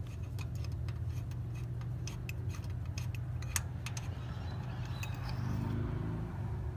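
Socket ratchet clicking in quick, irregular runs as it works a spark plug in a Toyota Tundra's 4.7L V8 cylinder head. The clicking thins out after about four seconds.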